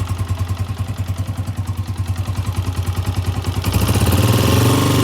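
Honda CG 125 single-cylinder four-stroke engine idling cold with a steady, even beat, then given a short rev near the end. It sounds like a tractor: the owner finds it far too noisy for a new bike.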